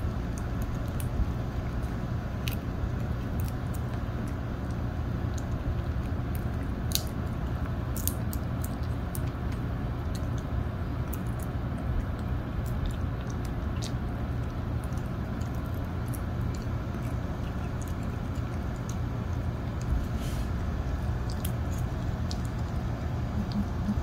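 A small dog chewing popcorn: scattered, irregular crisp crunches and clicks over a steady low hum.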